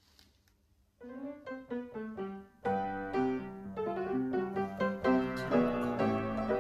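Background piano music: near silence for about a second, then single notes entering, filling out into a melody with accompaniment a little under three seconds in.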